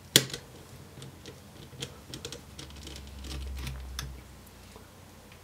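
Light clicks and ticks of a precision screwdriver with a Phillips 00 bit turning out the small retaining screw of a laptop's M.2 NVMe SSD, with one sharp click just after the start.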